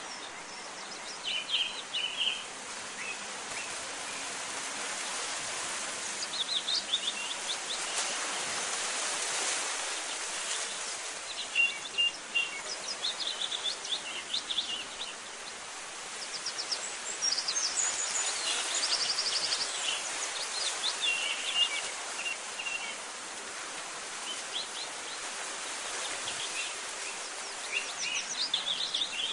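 Birds chirping in short runs every few seconds over a steady outdoor hiss.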